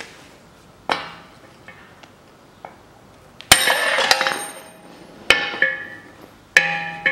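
Hammer blows on a socket used as a drift, knocking the old front wheel bearing out of the steering knuckle. The sharp metal strikes ring, spaced a second or more apart, and a longer metallic clatter comes about halfway through.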